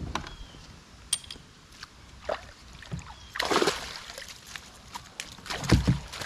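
A smallmouth bass being landed from a kayak: scattered clicks and knocks of tackle, a burst of water splashing about halfway through, then two heavy thumps against the kayak near the end as the net comes aboard.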